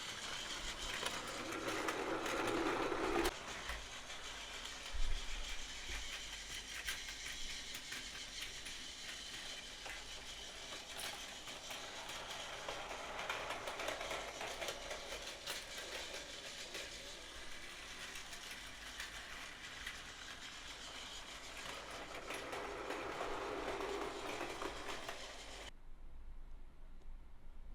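Battery-powered Plarail toy train running on its plastic track, a small motor and gears whirring with many small clicks from the wheels. It grows louder twice, near the start and again near the end, then cuts off suddenly.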